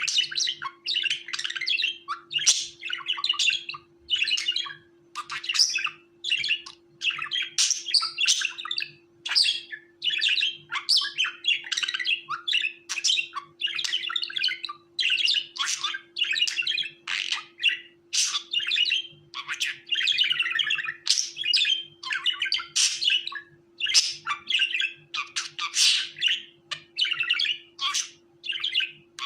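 Budgerigar chattering and chirping in quick, busy bursts of warbled calls with short gaps between them.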